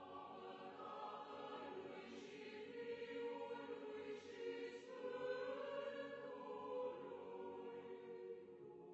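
Faint choir singing slow, sustained chords.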